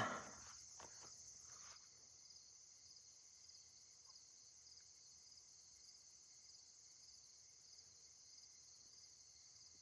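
Faint chirping of crickets: a high, fast, evenly pulsing trill that never stops.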